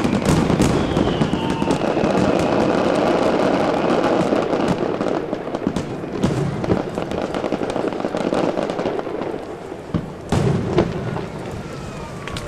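Fireworks display: a dense barrage of rapid bangs and crackling bursts that thins out after about nine seconds, with one more sharp bang about ten seconds in.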